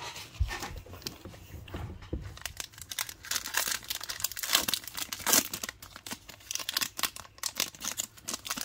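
Wrapper of a 2022 Donruss baseball card pack crinkling and being torn open by hand, with the loudest crackling rips about three to five seconds in.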